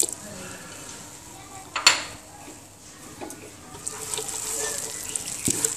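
Plastic spatula stirring and scraping coriander-leaf paste around a non-stick pan. There is a sharp knock about two seconds in, and the scraping grows busier near the end.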